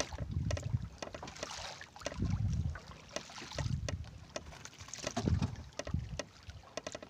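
Small boat at sea with water knocking against the hull in uneven low thumps about once a second, and wind rustling on the microphone.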